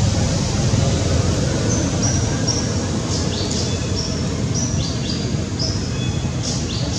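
Birds chirping: short high chirps and quick down-slurred whistles, beginning about two seconds in and repeating irregularly, over a steady low rumble of outdoor background noise.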